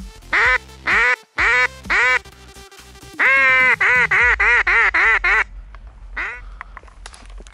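Loud duck quacking in a mallard pattern: four single quacks about half a second apart, then a fast run of about eight quacks, and one more quack near the end.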